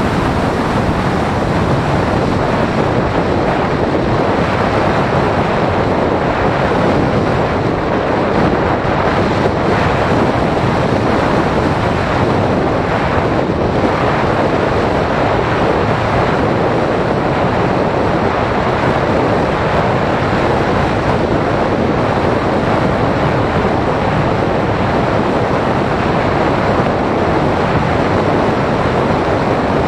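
Loud, steady rush of air over the microphone of a camera mounted on a Phoenix 1600 RC glider in flight. No motor note is heard.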